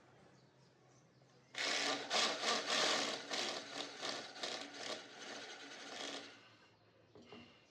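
A tool cutting wood with a harsh rasp that pulses in quick strokes, about three a second. It starts suddenly about a second and a half in and fades out about six seconds in.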